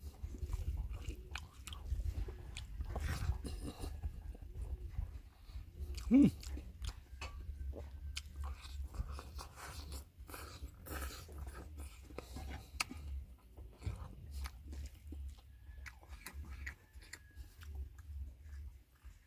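Close-miked chewing and biting of food: wet mouth clicks and crunches, one after another, over a low hum. About six seconds in comes one short, louder voiced sound from the eater.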